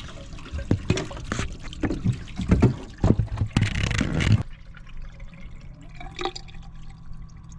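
Water splashing and dripping from a tub drain pipe that rats have chewed through, as the tub is run: a leak spilling under the house. Irregular splashes and knocks for about the first four seconds, then quieter.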